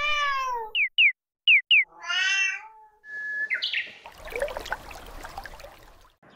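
A cat meowing twice, with four quick, high, falling chirps between the two meows. Then a bird's whistled call that steps upward in pitch, followed by fainter twittering.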